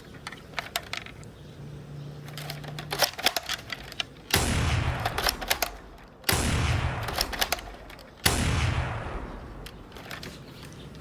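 Airsoft L96A1 sniper rifle: a run of light mechanical clicks from handling the rifle, then three loud shots about two seconds apart, each dying away over a second or so.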